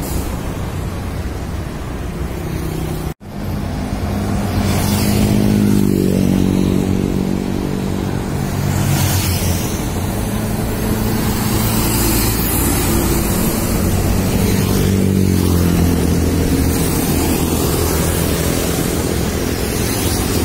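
Heavy diesel trucks passing on a busy road, with tyre and traffic noise. After a brief dropout about three seconds in, a Volvo tractor-trailer's engine climbs in pitch as it accelerates, then holds a steady drone as it comes by.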